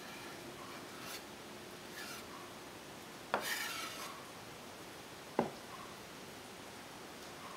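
Chef's knife scraping chopped herbs across a wooden cutting board. There are a few short scrapes, then a sharp knock and a longer scrape a little past three seconds in, and another sharp knock of the blade about five seconds in.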